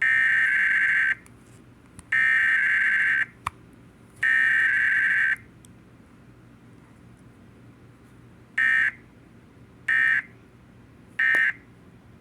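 Emergency Alert System SAME digital data bursts for a required weekly test: three header bursts of about a second each, a second apart, then after a pause of about three seconds three short end-of-message bursts. No attention tone follows.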